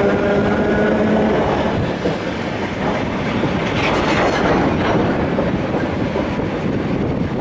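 ED2T electric suburban train running, heard from inside the carriage: a rising motor whine fades about a second in, leaving the steady rumble and clatter of wheels on the rails.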